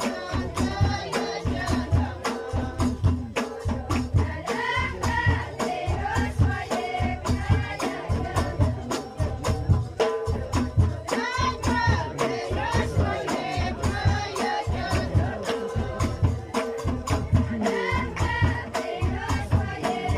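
Ahwach, Amazigh folk music from the Moroccan Souss: group singing over a steady, regular beat of frame drums.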